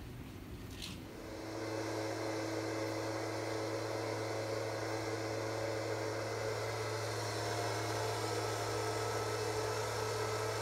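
Electric motor of an automatic self-cleaning litter box running its cleaning cycle, turning the globe: a steady hum with a faint whine, starting about a second in.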